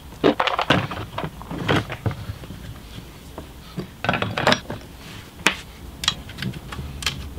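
A Stihl MS460 chainsaw being handled and its covers fitted back on during reassembly: irregular clicks, knocks and clatter of parts against each other, some sharp.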